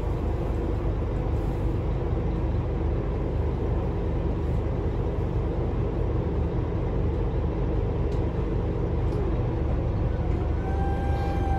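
Scania K320UA articulated bus's five-cylinder diesel idling, a steady low rumble heard from inside the passenger cabin. Near the end a steady whine joins as the bus starts to move off.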